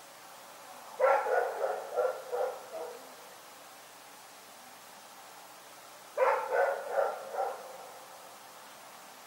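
A dog barking in two quick runs of several barks each, about a second in and again about six seconds in, with a faint steady background between them.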